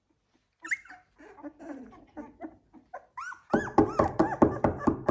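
Chocolate Labrador puppies about two weeks old whimpering and squeaking in short, thin cries. About three and a half seconds in it turns into a much louder, rapid run of rising-and-falling cries, about four a second.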